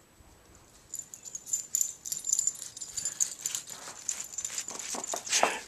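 Small dog's collar tags jingling in quick short clicks while it moves about in the snow. Near the end it gives a few short whimpers.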